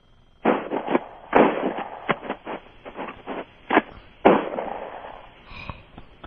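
Remington 870 pump-action shotgun fired several times in quick succession. Each loud shot is followed by an echoing tail, with smaller sharp clicks and knocks between the shots.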